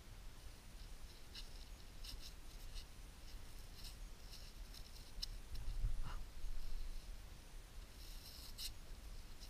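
Gloved hands rubbing and turning a rusty metal find, with short dry scratching and scraping sounds as soil and rust are rubbed off, several times over, the last and longest near the end. A brief low rumble about six seconds in.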